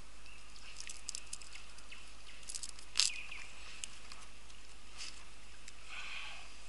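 Light rustling and scattered ticks from a nylon cast net and gear being handled on a stony bank, with one sharper click about three seconds in, over a steady faint hiss.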